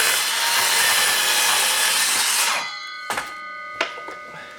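Ridgid R48607B 18-volt cordless 7-1/4 inch sliding compound miter saw cutting through 1/2 inch plywood. It runs loud and steady, then cuts off abruptly about two and a half seconds in as the blade brake stops it. Two short knocks follow.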